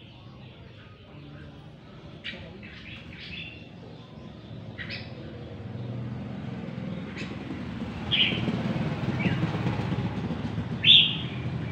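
Caged red-whiskered bulbuls singing in short, scattered phrases, the loudest a little after halfway and again near the end. A low rumble builds up beneath them from about halfway.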